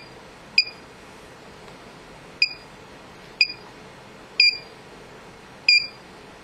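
Hitec Aurora 9 radio transmitter beeping as its touch screen is pressed: five short, high beeps, unevenly spaced, one for each key press.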